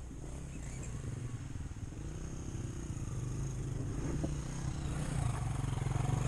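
Dirt bike engine running at low revs, growing steadily louder as it approaches.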